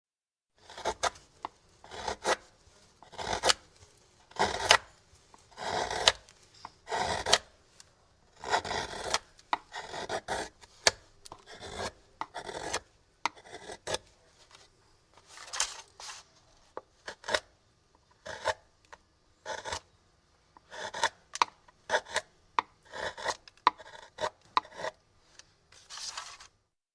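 Hand chisel carving wood close up: a steady series of short scraping strokes as the blade pares shavings from the wood, irregular in spacing, some strokes longer and some quick nicks.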